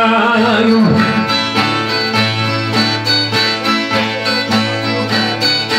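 Viola caipira playing an instrumental interlude of quick, rhythmic plucked strumming. A sung note is held and dies away about a second in.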